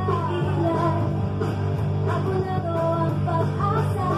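Electric bass guitar played along to a recorded rock song with a singer; the bass line sits low under the vocal melody.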